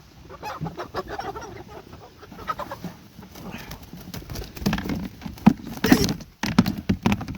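Meat chickens clucking and squawking as they are rounded up and grabbed by hand, with a run of sharp knocks and scuffles, the loudest a little past the middle.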